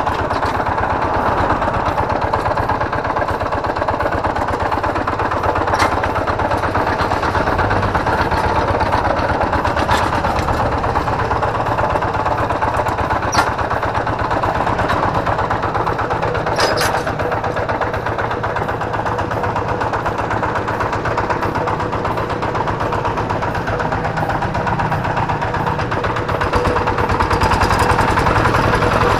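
Kubota single-cylinder diesel engine on a hand tractor running under way with a very rough, steady clatter and a few sharp clicks. The roughness is the sign of a worn bearing, which the mechanic places at the flywheel or gear side and later finds pitted.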